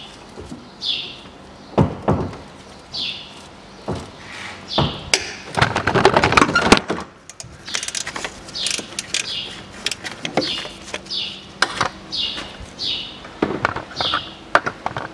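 Tool and handling noise as a very tight alternator mounting bolt is worked loose: scattered metal clicks and knocks, with a loud clatter about six seconds in as the camera is knocked and nearly falls. A small bird repeatedly chirps a short falling call, about once a second.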